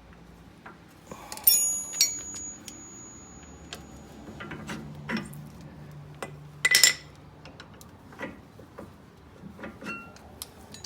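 Small steel brake parts clinking and tapping against the caliper as the brake pads and their anti-rattle clips are worked out of a front brake caliper: sharp metal clinks, the loudest about one and a half to two seconds in, one ringing briefly with a high tone, and another near the middle.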